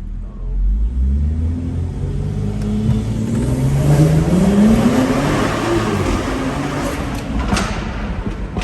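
High-horsepower BMW under a hard full-throttle pull, heard from inside the car: the engine note climbs steadily in pitch and gets louder, peaking about four to five seconds in. It then gives way to a steady rush of road and wind noise.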